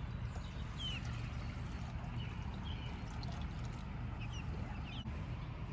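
Water poured from a plastic jug into a chick waterer, with a few faint chick peeps over a steady low rumble.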